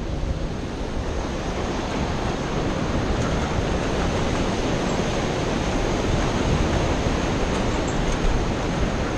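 Steady rushing noise of a flooded river's churning rapids, mixed with wind on the microphone, growing a little louder over the first few seconds.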